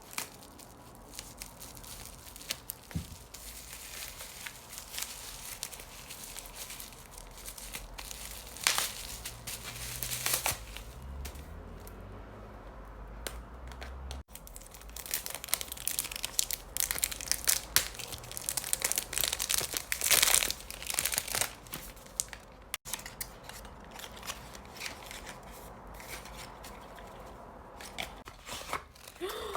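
Perfume packaging being unwrapped by hand: irregular crinkling and tearing, with the loudest bursts about a third of the way in and again past the middle.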